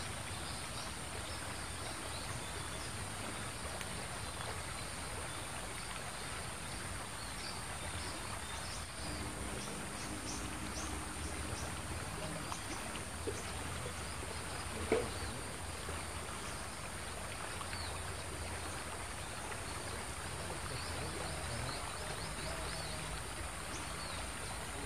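Riverside ambience: a steady low rush of flowing water with insects chirping. A single sharp knock stands out about fifteen seconds in.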